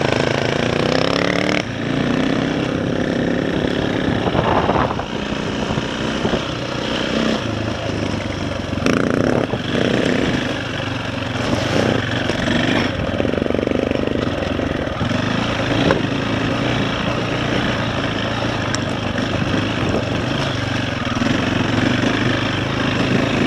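KTM 525 single-cylinder four-stroke dirt bike engine running under way, its note shifting as the throttle and gears change.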